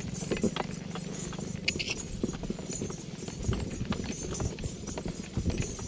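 A camel pulling a rubber-tyred cart along a sandy dirt track: a run of irregular footfalls and knocks over the low rumble of the cart rolling.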